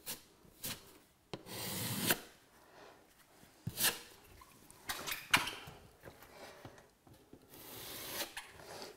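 Steel putty knife scraping and dragging across a patched plaster wall in several separate strokes. There are short scrapes at first and a longer drawn-out stroke about a second and a half in, and another long stroke near the end.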